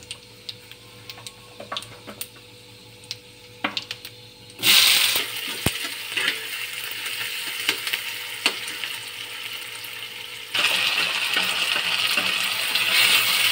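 Whole spices crackling lightly in hot oil in a kadai, then about four and a half seconds in sliced onions go in with a sudden loud sizzle that keeps on as they are stirred, with the spatula clicking against the pan. The sizzle gets louder again a little after ten seconds in.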